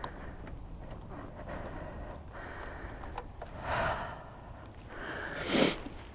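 A rider breathing hard into a helmet-mounted microphone: two breathy exhalations, the second, about five and a half seconds in, louder than the first, over a low steady rumble.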